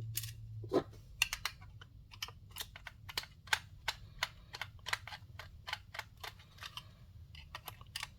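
Small screwdriver driving screws back into a plastic sensor housing, with quick irregular clicks and ticks, about two or three a second.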